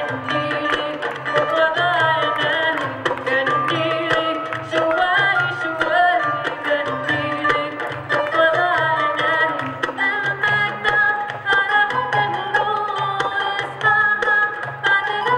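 Live Arabic music: a qanun and a plucked string instrument play a bending melody over a steady rhythm from a riq frame drum and a darbuka goblet drum, with repeated low drum strokes.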